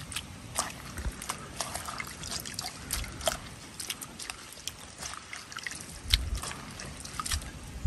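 Hands squeezing and rubbing soaked dried leaves in a little water in a metal wok: wet squishing and dripping, with many small irregular clicks and crackles.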